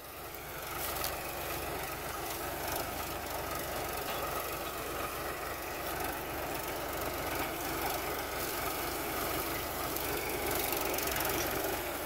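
Powertrac 439 tractor's three-cylinder diesel engine running steadily under load as it pulls a tillage implement through the soil.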